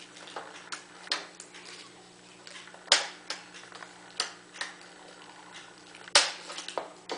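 Irregular plastic clicks and taps from a child's fingers pressing the buttons of a toy electronic drum pad, with two sharper knocks about three and six seconds in.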